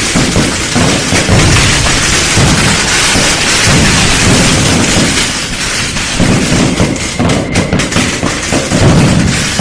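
Fireworks going off in a continuous barrage: dense crackling and hissing with deep booms that overlap one after another.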